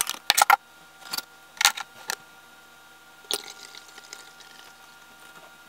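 A run of clicks and taps as a stainless steel funnel is set into a plastic bottle and a glass jar is handled. A little past halfway comes a sharp tap, and then a faint trickle as vinegar is poured from the jar through the funnel into the bottle.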